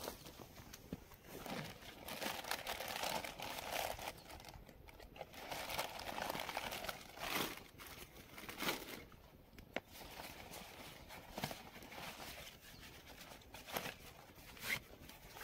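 Rustling and crinkling as a backpack is rummaged through by hand, with a few short sharp clicks and knocks from its fittings and contents.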